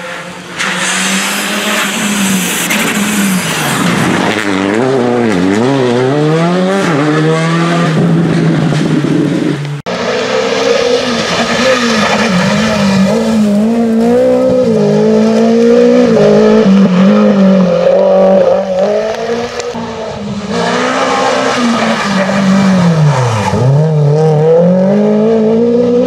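Rally car engines at full throttle, the pitch climbing and dropping again and again with gear changes and lifts for corners. After an abrupt cut about ten seconds in, a first-generation Renault Clio rally car's engine revs up through the gears the same way.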